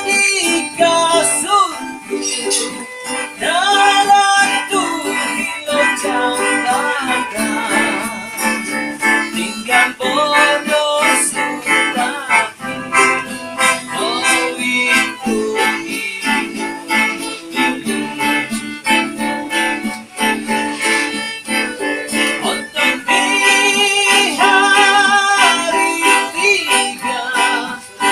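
A singer's voice, live and without editing or effects, singing a melody with vibrato on the held notes over guitar.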